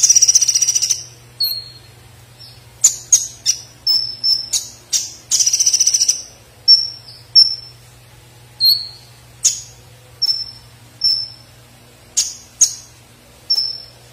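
Male Van Hasselt's sunbird (kolibri ninja) singing: short sharp high chirps, about one a second and sometimes in quick runs, broken by two rapid buzzy trills, one at the start and one about five seconds in.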